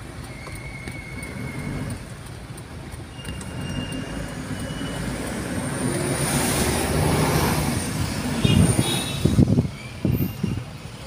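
Road and traffic noise heard from inside a moving vehicle, growing louder toward the middle, with a few loud low thumps near the end.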